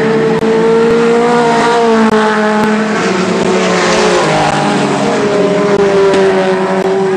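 Several mini stock race cars running hard on a dirt track, their engine notes rising and falling as they pass. The sound drops out for an instant about half a second in.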